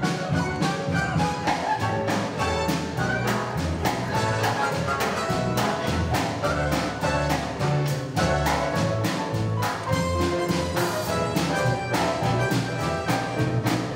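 Upbeat orchestral show music with brass and a steady, driving beat: an instrumental dance section.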